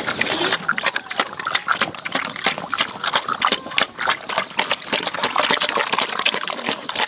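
Farm animals amid a dense run of irregular clicks and knocks.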